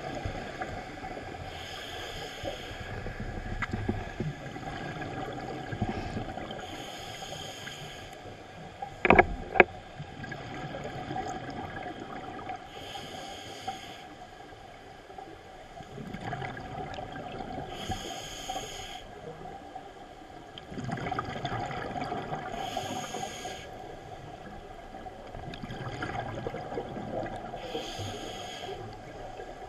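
Scuba diver breathing through a regulator, heard underwater: a short hiss about every five seconds with rumbling exhaled bubbles in between. One sharp knock about nine seconds in.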